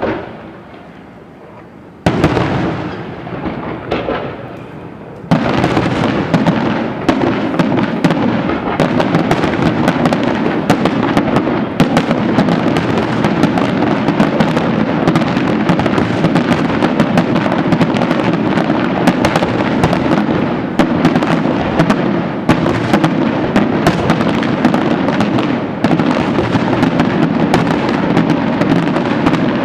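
Fireworks display: a sharp bang at the start, then big bursts about two seconds in. From about five seconds in comes a dense, unbroken barrage of rapid cracks and bangs.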